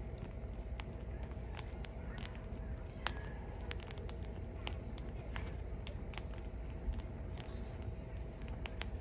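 Firewood burning, crackling with irregular sharp pops, a louder pop about three seconds in and another near seven seconds, over a steady low rumble.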